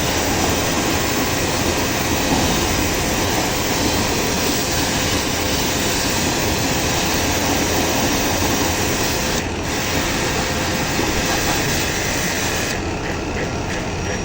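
Steady machine noise from a running motor with a dense hiss. It drops briefly about nine and a half seconds in, and again near the end.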